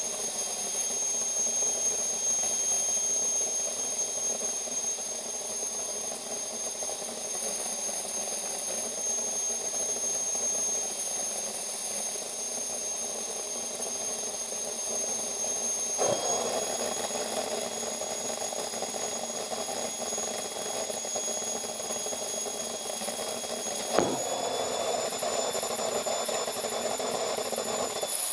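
Gas-turbine jet engine on a garden tractor running steadily with a high-pitched whine over a rushing noise. Its pitch steps up slightly twice, each time with a sharp click, about halfway through and again near the end.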